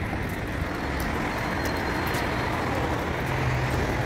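Steady road traffic noise from cars passing on a wide city street, heard from the sidewalk.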